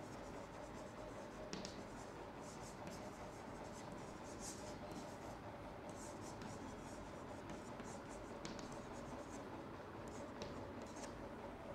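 Chalk writing on a blackboard: short, irregular scratchy strokes as words are written out, over a faint steady hum.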